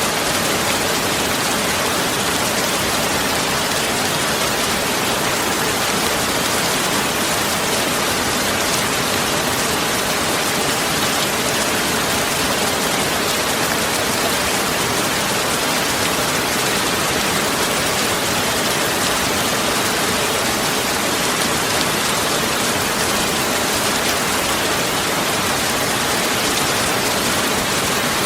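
Steady, even rain-like hiss with no breaks or changes.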